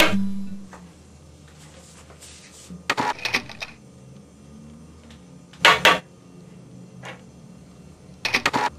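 Music cuts off at the start. Then come three short bursts of rapid clicking and clattering, each under a second long and spaced about two and a half seconds apart.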